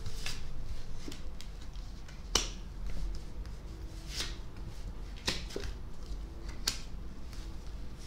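Tarot cards being dealt and laid down one after another onto a cloth-covered table: about five crisp card snaps and slaps, a second or so apart, with soft rustling of the cards between them.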